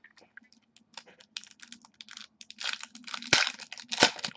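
Football trading cards and pack wrappers being handled: a run of short, dry clicks and rustles, loudest about three and four seconds in.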